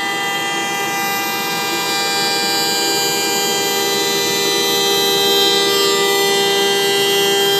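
CNC router spindle running with a steady, many-toned whine as the machine cuts a jointing pass along the edge of a maple board, getting a little louder about five seconds in.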